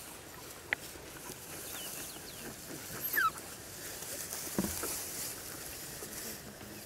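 African wild dogs feeding on an impala carcass, with scattered clicks and tearing sounds. Around the middle come a few short, high, squeaky calls that fall in pitch, and a low knock follows a little later.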